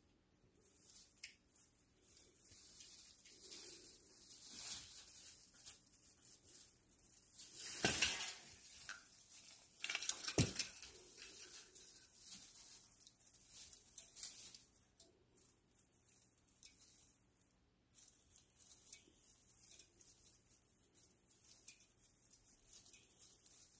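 Christmas tree branches rustling and crackling as a kitten climbs and clambers through them, with two louder knocks about a third of the way and halfway through.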